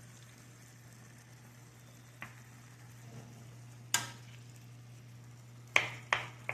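Pan of noodles and vegetables sizzling faintly, with a spoon clicking against the pan a few times as the noodles are broken up; the sharpest knock comes about four seconds in and two more near the end.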